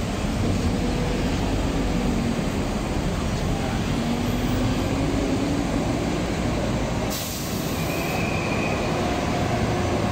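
Steady vehicle and traffic noise with a low, slightly wavering engine drone. The sound changes abruptly about seven seconds in.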